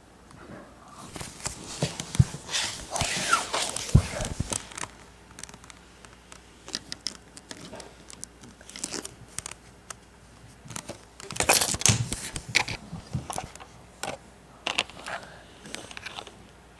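Handling noises: an irregular run of clicks, rustles and crinkling of plastic, coming in two busier spells, one in the first few seconds and another about two thirds of the way through.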